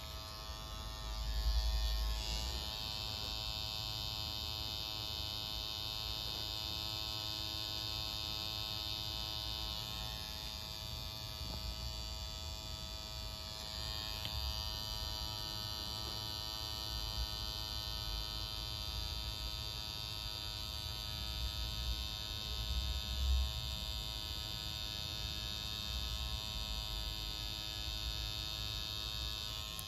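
Pen-style tattoo machine buzzing steadily as its needle works red ink into skin, with a couple of low bumps along the way.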